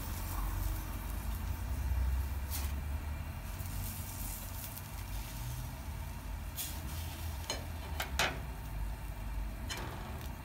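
Yakitori skewers sizzling over a commercial gas grill with charcoal, under a steady low rumble. A few sharp clicks are heard, the loudest about eight seconds in.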